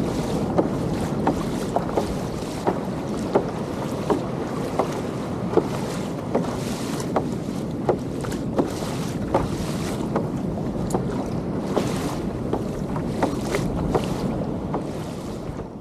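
Wind buffeting the microphone over choppy sea, with water slapping against a fishing kayak's hull in frequent short smacks.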